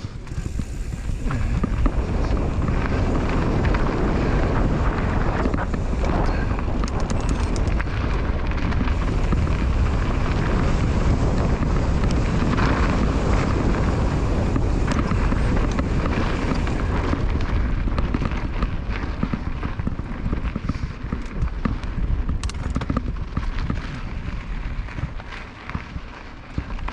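Wind buffeting the bike-mounted camera's microphone, with mountain bike tyres rolling over a dirt trail and small rattles and knocks from bumps on the descent. It is loudest through the first two-thirds and eases toward the end.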